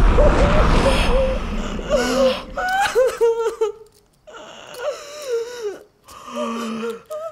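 A man groaning and wheezing in pain from a glass-shard wound in his side, strained moans and gasps that waver and slide up and down in pitch, broken by short pauses. A deep low rumble fades out over the first two seconds.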